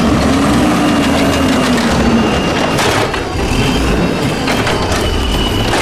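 Toy garbage truck being handled and pushed along, with a continuous crunching, scraping noise.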